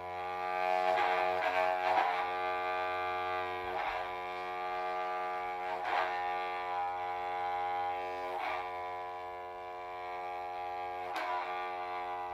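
Homemade one-string bowed fiddle with a brass horn bell, holding one steady droning note. It is re-bowed every one to three seconds, and each new stroke makes a short attack.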